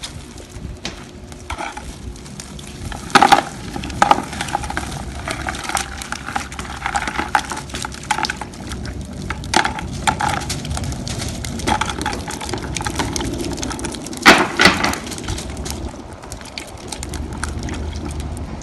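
A cast net's catch of peanut bunker (young menhaden) flapping and spilling into a plastic bucket: a busy run of small wet slaps and clicks, with a few loud knocks about 3 and 4 seconds in and again around 14 seconds in.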